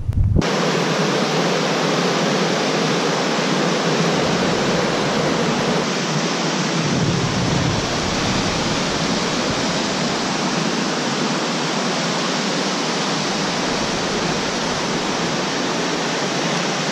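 Fast-flowing river rushing over rocks: a steady, even rush of water.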